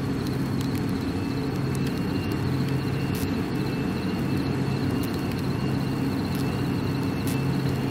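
Steady low rumble of fire apparatus diesel engines running to pump water to an aerial master stream, with a thin high chirping pulse above it.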